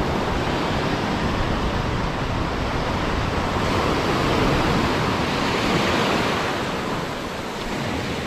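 Sea surf breaking and washing through shallow water, a steady rush that swells louder a few seconds in as a wave comes through.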